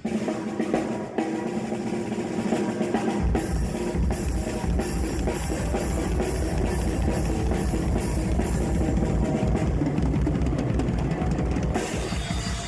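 Metal band playing loud through the PA at a soundcheck, with the drum kit to the fore. About three seconds in, the bass drum and full kit come in with fast strokes and cymbals.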